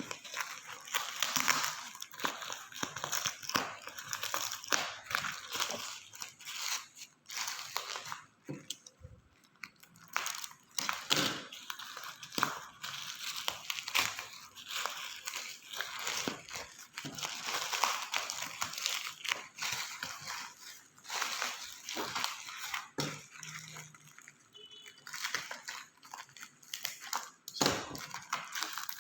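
Parcel packaging crinkling and rustling as it is handled and unwrapped by hand, with many small sharp crackles throughout.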